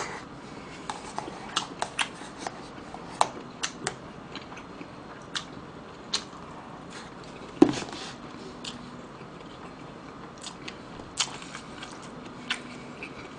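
Close-up eating sounds: chewing a mouthful of rice, with scattered sharp clicks of chopsticks against a plastic bowl, the loudest about halfway through.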